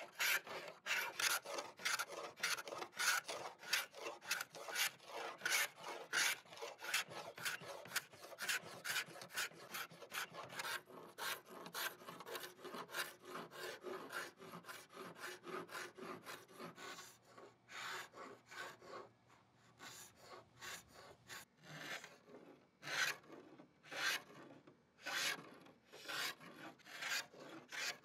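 Hand scraper dragged in short, quick strokes across a walnut-veneer table top, scraping off the old finish with a rasping scrape about two to three times a second; in the second half the strokes come fewer and farther apart.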